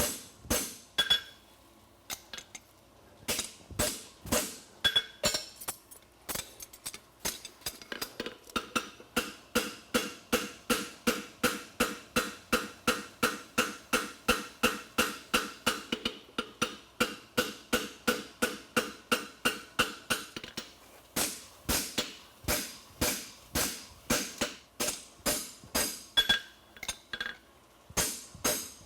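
Hand hammer striking a hot steel horseshoe on an anvil, the anvil ringing with each blow. A few spaced blows at first, then a steady run of about two strikes a second, with a brief pause about two-thirds of the way in.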